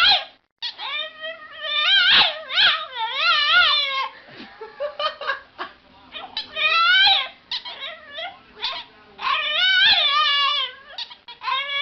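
A dog howling and whining in a string of long, warbling calls, the pitch wobbling up and down within each call, with short breaks between them.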